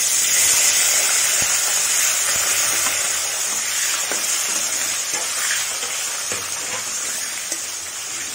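Tomato pieces hitting hot oil in a kadai with mustard seeds and dried red chillies, sizzling loudly from the moment they go in and slowly dying down. A metal spatula stirs them, tapping and scraping now and then against the pan.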